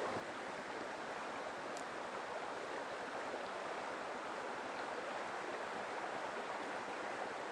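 Mountain stream water rushing steadily over rocks, an even hiss with no change.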